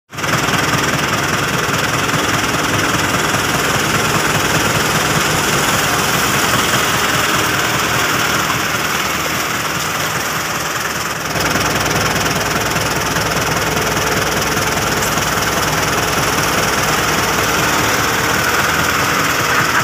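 New Holland TT4.90 tractor's diesel engine running steadily with a knocking clatter, the sound shifting slightly about eleven seconds in.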